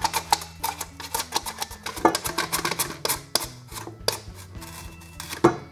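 Carrots being sliced on a plastic mandoline slicer: a rapid run of sharp scraping clicks, several a second, as each stroke drives the carrot across the blade. The loudest strokes come about two seconds in and again near the end.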